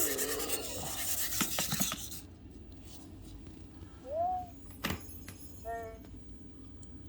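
EMO desktop robot handled and set down, with rubbing and whirring for the first two seconds. Then the robot gives a short rising electronic chirp about four seconds in, a click follows, and a brief buzzy electronic tone comes near six seconds.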